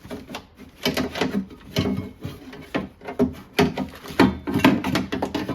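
Metal window track being worked out of a car door: irregular scraping, rubbing and knocking of metal against the door shell, with several sharper knocks in the second half.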